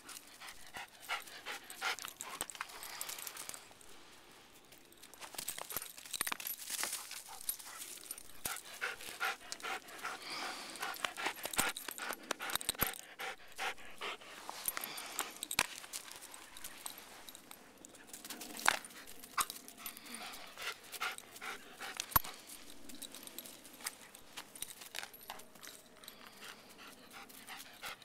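A dog panting close to the microphone, with scattered short clicks and rustles.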